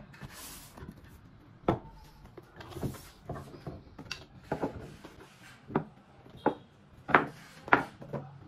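Wood chisels being lifted out of a cardboard box and set down one by one on a wooden workbench: irregular clacks and knocks, the two loudest near the end. A brief papery scrape of the cardboard box lid comes about half a second in.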